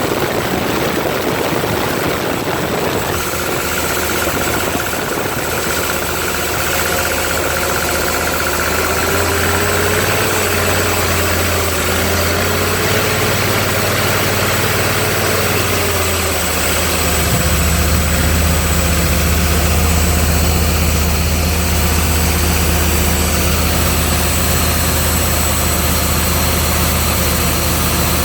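Gasoline engine of a 302 air compressor running steadily, running pretty good. A few seconds in its sound changes, and past halfway its low hum grows louder.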